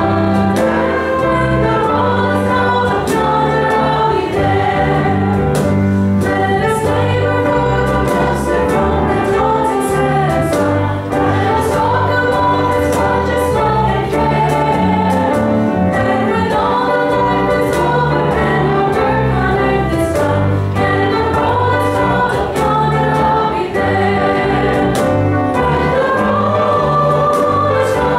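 A congregation singing a hymn together, led by a woman's voice on a microphone, with bass guitar accompaniment. The singing holds long notes and moves steadily from note to note.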